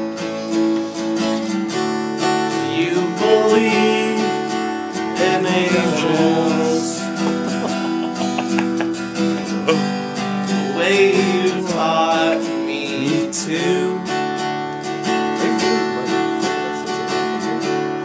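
Acoustic guitar strummed steadily, with voices singing in places.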